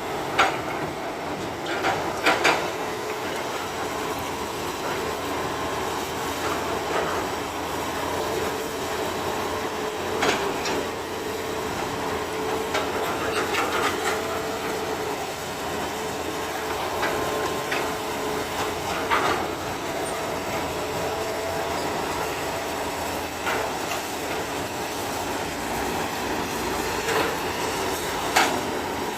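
Excavator digging soil: the engine runs steadily, with sharp metallic clanks every few seconds.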